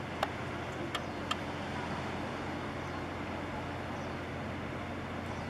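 Steady low engine hum of the research vessel New Ocean Researcher 3 under way, over a wash of outdoor noise, with a few short clicks in the first second and a half.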